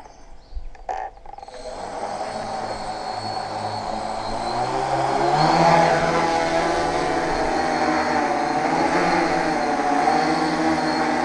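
Tarot FY680 hexacopter's electric motors and propellers spinning up after a few faint clicks, rising in pitch and loudness to a peak about six seconds in as it throttles up for takeoff. Then a steady buzzing hum whose pitch wavers as the throttle shifts.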